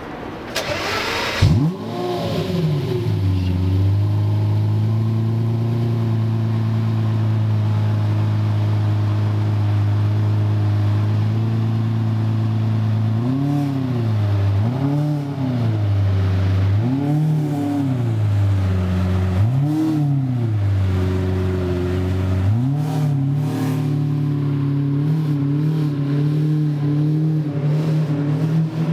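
Lamborghini Murcielago LP670-4 SuperVeloce's 6.5-litre V12 starting up about a second and a half in with a sharp flare of revs, then idling steadily. Later it gives four short blips of the throttle, each rising and falling, and then settles to a faster, higher-pitched idle.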